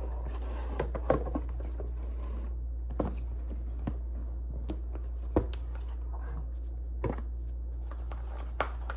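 Scattered light clicks and taps of a model locomotive's packaging being handled and opened, over a steady low hum.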